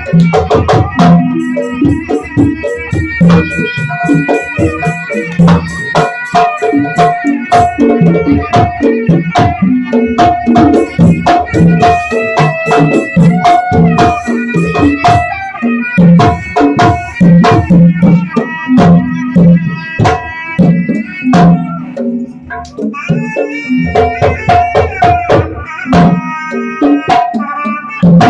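Instrumental music played by a band, with fast hand-drum and percussion strokes under held melodic notes.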